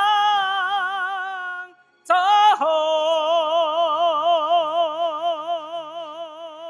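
A male singer's amplified voice holding a long note with a wide, even vibrato. It breaks off just before two seconds in. A brief higher attack then drops into a second long vibrato note, slightly lower, that fades toward the end.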